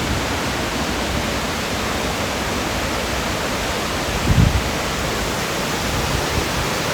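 Waterfall rushing in a steady, even roar of falling and churning water, with a brief low thump about four seconds in.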